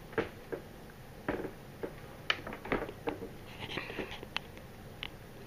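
About a dozen light clicks and taps, irregularly spaced, with a brief soft rustle near the middle.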